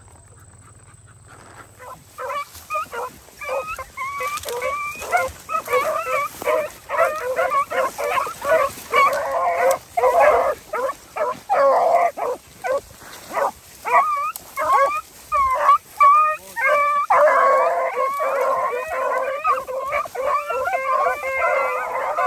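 A pack of beagles baying together, several hounds' voices overlapping, the sound of hounds running a rabbit in a field trial. The baying starts about two seconds in and carries on without a break.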